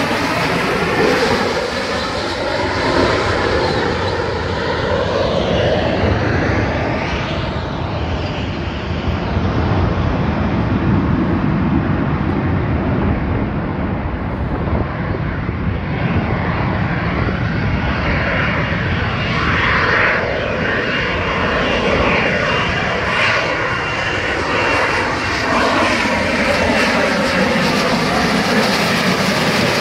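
Jet noise from a Marine AV-8B Harrier's Pegasus turbofan, loud and continuous as the jump jet flies slowly past overhead, with tones sweeping up and down through the noise as it moves.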